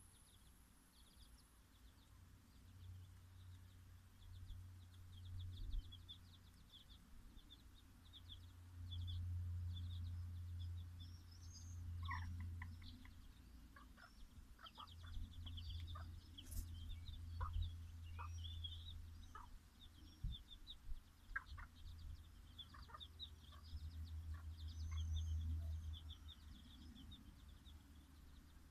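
Bantam chicks peeping in quick runs of short, high calls, with the Dutch bantam hen clucking now and then.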